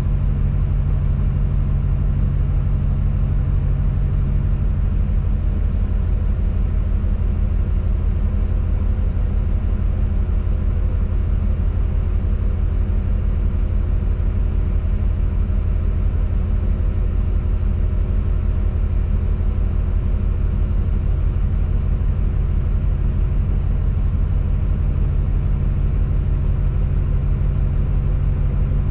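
Diesel engine of a Tadano rough-terrain crane running steadily, heard from inside the operator's cab as a constant low hum while the crane holds and moves a load.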